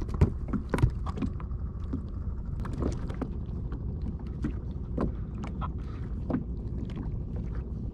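Water lapping against a plastic sit-on-top kayak's hull over a steady low rumble of wind on the microphone, with scattered light knocks and clicks, the loudest two in the first second.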